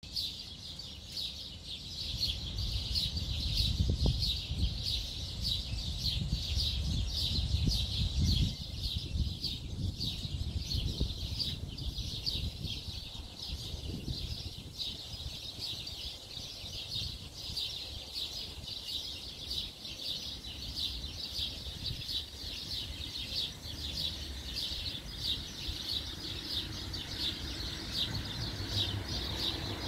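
A continuous high-pitched chirping chorus, pulsing rapidly and evenly. Low rumbling noise lies under it for the first ten seconds or so.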